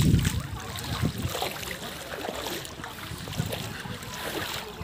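Wind gusting on a phone microphone, with the steady rush of a shallow, stony river. The strongest gust is right at the start, another about a second in.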